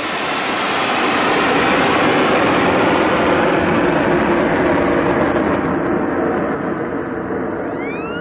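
Ship-launched missile's rocket motor firing: a loud, even rushing noise that builds over the first second, holds, then eases off a little. Near the end a rising whine with overtones sets in.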